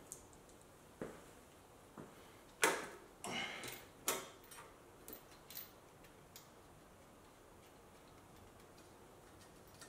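Scattered clicks and knocks of hands handling parts at the tubular exhaust header of a 2JZ engine. The loudest knock and a short clatter come between about two and a half and four seconds in, then a few faint ticks before it goes quiet.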